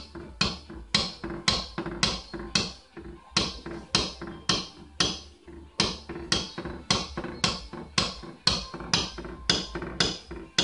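Hammer tapping a plastic knockdown punch against a car roof panel in rapid, even taps, about three a second. The taps knock down the raised rim around a hail dent while the metal is still hot from heating, part of paintless dent repair.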